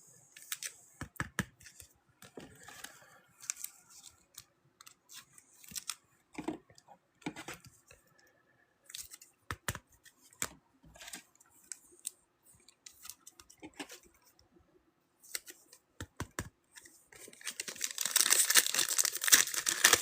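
Light scattered clicks and taps of cards and packaging being handled, then near the end a dense crinkling tear as a trading-card pack's foil wrapper is ripped open.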